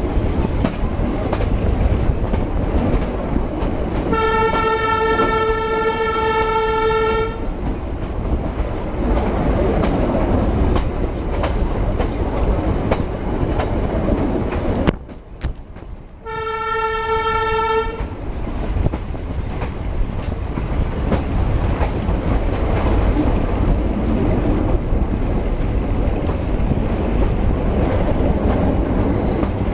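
Narrow-gauge passenger train running, a steady rumble heard from the open carriage door, with the locomotive horn sounding twice: a long blast about four seconds in and a shorter one about sixteen seconds in. The running noise briefly drops away just before the second blast.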